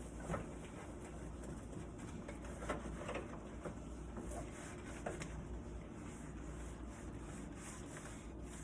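Faint rubbing and a few light knocks from a soapy rag scrubbing the door of a microwave oven, over a low steady hum.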